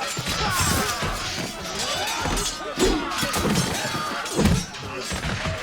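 Staged battle sound effects: a crowd of soldiers shouting over one another amid crashes and hits, with heavy impacts about three seconds in and again about four and a half seconds in.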